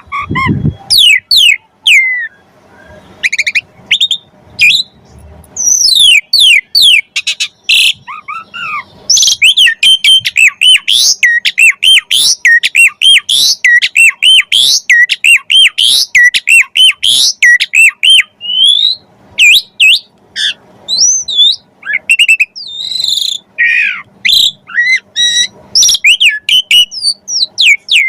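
Asian pied starling (jalak suren) singing loudly: a fast, varied run of whistles, chirps and looping up-and-down notes, several a second. The song eases off a couple of seconds in and comes back dense and unbroken about six seconds in.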